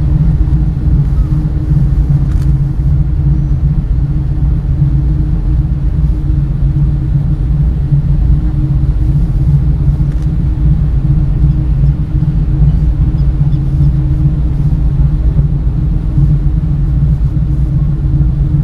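Motor ship's engines running under way, heard from the deck as a steady low rumble with an even, unchanging hum.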